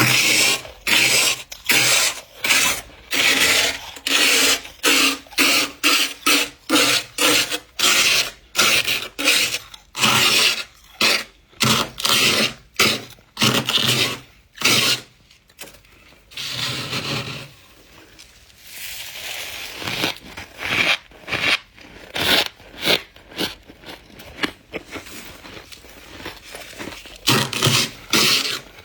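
Scraper dragged through thick humidifier-grown freezer frost in short repeated scrapes, about two a second, with a softer stretch a little past the middle.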